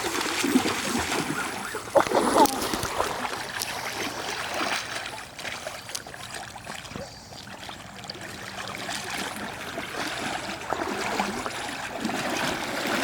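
Water splashing as a hooked king salmon is fought in the river, over the steady rush of the current.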